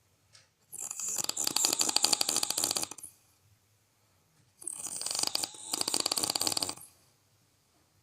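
A person snoring: two long, rattling snores of about two seconds each. The first starts just under a second in and the second about four and a half seconds in, with a near-silent pause between them.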